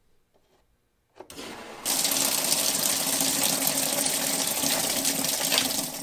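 Water gushing into a top-load washing machine's tub as it fills. It starts faintly about a second in, then runs as a steady, loud rush.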